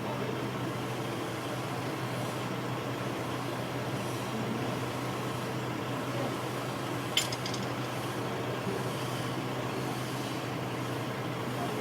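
A steady low engine hum, with one sharp metallic clink about seven seconds in.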